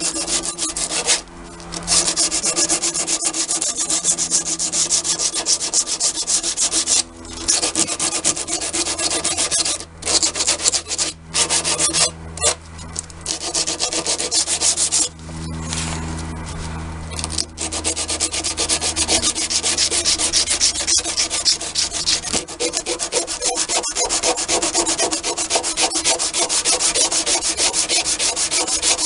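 Sandpaper rubbed quickly back and forth by hand on the edge of a wooden shelf board, in runs broken by several short pauses.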